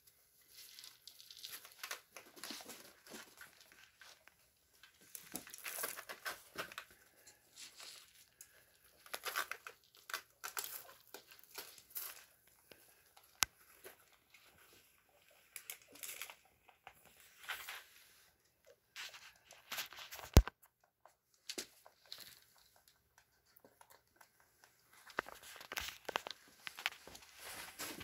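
Hay and wood-shaving bedding rustling and crackling in irregular bursts as baby rabbits squirm under their mother to feed. A single sharp click about two-thirds of the way through is the loudest sound.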